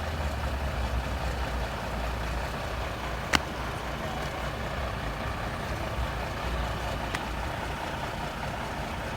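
Heavy vehicle engine running steadily with a low rumble, and a single sharp click a little over three seconds in.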